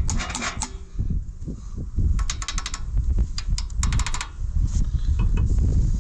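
Sharp metal clicks and taps of a red-handled hand tool on the valve rocker arms of a John Deere 1010's engine, with two quick runs of clicks about two and three and a half seconds in, over a low rumble.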